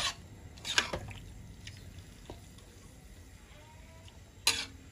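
Metal spatula stirring potatoes and tofu through a thin coconut-milk sauce in a wok: wet stirring with a few sharp clinks and scrapes of the spatula against the pan, the loudest about four and a half seconds in.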